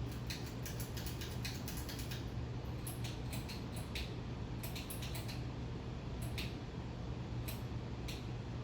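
A 52-inch Craftmade ceiling fan coasting down after being switched off, with irregular mechanical clicks and creaks coming in clusters over a steady low hum.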